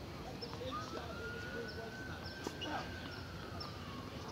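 A siren wailing: one long tone that rises slowly for about three seconds, then falls away near the end.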